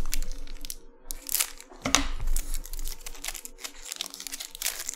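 Foil wrapper of a Bowman Chrome trading-card pack crinkling as it is handled and torn open by hand, in irregular crackles, with a soft handling bump about two seconds in.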